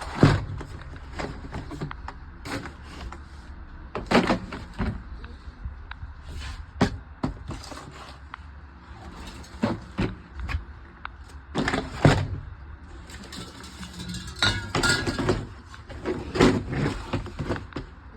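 Tools and the plastic case of a 186-piece tool kit being handled: irregular clicks, knocks and clatter, with a busier run of rattling about fourteen seconds in.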